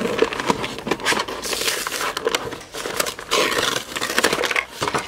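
Clear plastic blister packaging crinkling and crackling as a toy package is pulled open by hand, the cardboard backing rustling with it. The crackling comes in two louder spells, about a second and a half in and again from about three seconds in.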